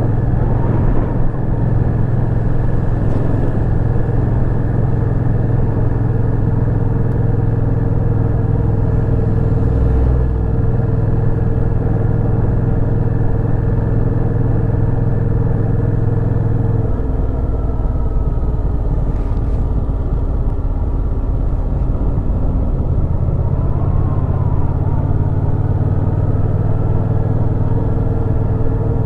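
Yamaha FZ-07 motorcycle's parallel-twin engine running steadily while riding a twisty road. The engine note drops lower a little over halfway through, then climbs back up a few seconds later.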